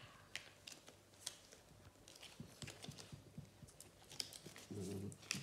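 Faint paper crackling and scattered small clicks from a Panini sticker being peeled off its backing and handled, with a brief low voice sound near the end.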